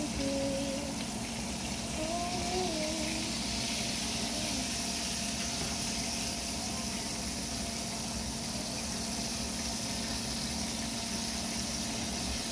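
Steady hiss with a low hum from pots of noodles boiling and steaming on the stovetop.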